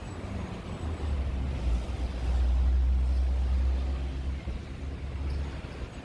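City road traffic with a deep engine and tyre rumble that swells about two seconds in and eases off after about four seconds, as a vehicle passes close.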